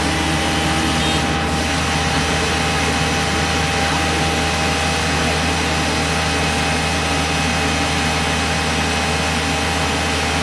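Yamaha Aerox moped scooter running at a steady top speed with its rear wheel spinning on a police roller test bench, engine and roller making one unchanging loud sound. This is a speed check that read 56 km/h, just over the legal limit.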